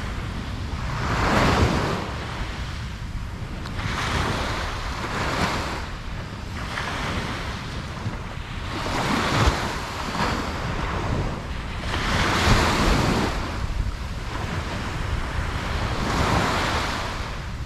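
Ocean surf breaking on a beach, each wave swelling and washing back every few seconds, over a constant low rumble of wind on the microphone.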